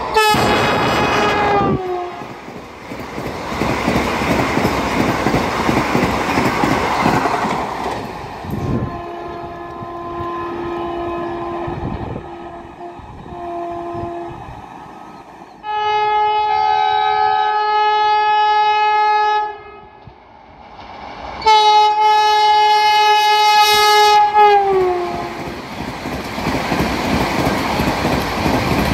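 Vande Bharat Express trainsets running through a station at speed and sounding their multi-tone horns. A horn blast drops in pitch as the first train passes, followed by the rush of its coaches. Then come fainter short horn toots, a long steady horn blast, and a second horn that falls in pitch as it goes by, ending in the close rush and clatter of coaches passing.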